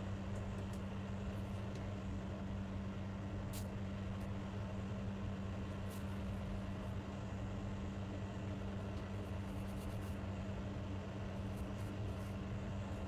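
A steady low hum with a few faint, sharp clicks.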